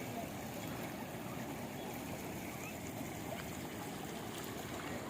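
Rainwater flowing in a steady, continuous rush.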